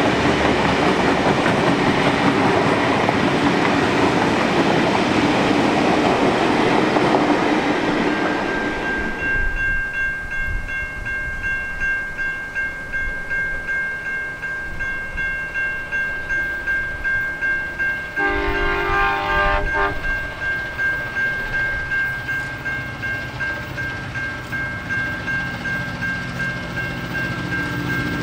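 Passenger carriages rolling past with steady, loud rail noise, which ends about a third of the way in. Then a quieter stretch with steady high-pitched tones, a distant train horn sounding once for about a second and a half, and the low rumble of an approaching diesel-hauled train building near the end.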